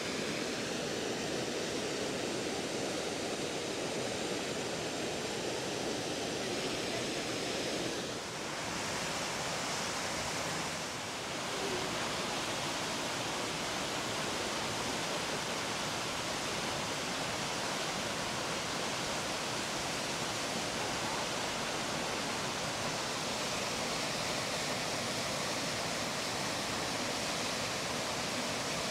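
Öxarárfoss, a small waterfall, rushing steadily. The level dips briefly about eight seconds in and again about eleven seconds in.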